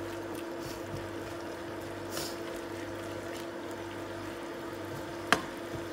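Beef simmering in its own juices in a frying pan, stirred with a wooden spatula, over a steady hum. A single sharp knock near the end.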